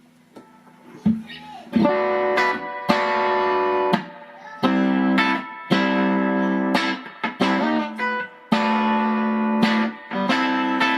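Electric guitar played through a Fender Custom Vibrolux Reverb valve amp with its spring reverb on. Chords strummed about once a second, each ringing out.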